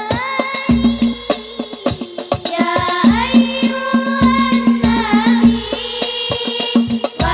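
Hadroh Al Banjari ensemble: a group of voices singing an Arabic sholawat together over fast interlocking strokes of hand-struck terbang frame drums, with a few deep bass drum hits that ring on.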